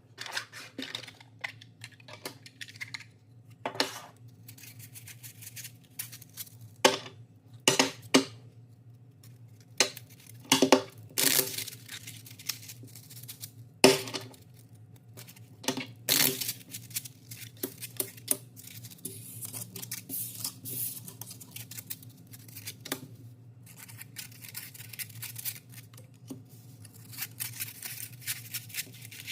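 3D-printed plastic domino cards handled and shuffled, clicking and clacking against each other at irregular moments, with a steady low hum underneath.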